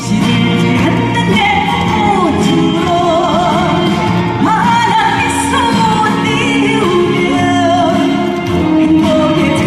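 Live trot music: a woman singing a melody with vibrato over a band backing.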